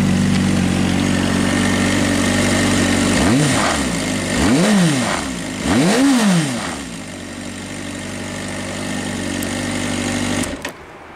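Suzuki GSR400 ABS inline-four engine through a Yoshimura Cyclone exhaust, idling, then blipped three times in quick succession a few seconds in, each rev rising and falling, the last one highest. It settles back to idle, and the engine sound stops suddenly near the end.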